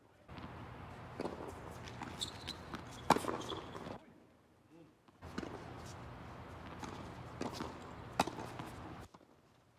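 Tennis balls struck by rackets and bouncing on a hard court in a doubles rally: a series of sharp pocks, the loudest about three and about eight seconds in, with a short near-silent break around four seconds in.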